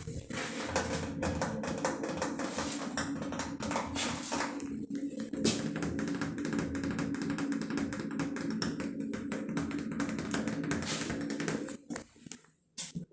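Rapid ASMR tapping on objects, many quick taps in close succession, with a steady low tone running underneath. The tapping thins out and drops away about a second before the end.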